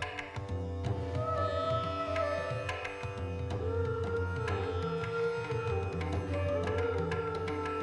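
Instrumental background music in Indian classical style: a melody that bends and glides between notes over a steady low drone, with frequent hand-drum strokes.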